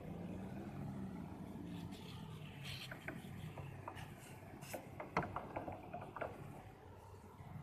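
A small 12-volt DC water pump hums low and steady while its thin stream from a spray wand washes a motorbike wheel. From about three seconds in, scattered sharp clicks and taps sound as water spatters on the wheel and the wand is handled.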